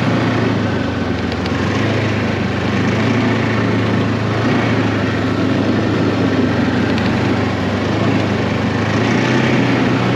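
Ski-Doo Tundra 600 ACE LT snowmobile's four-stroke twin-cylinder engine running steadily while riding along a snowy trail.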